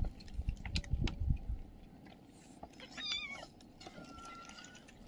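A cat meows once, a short wavering cry about three seconds in, over soft clicking and smacking of cats eating from a plastic trough.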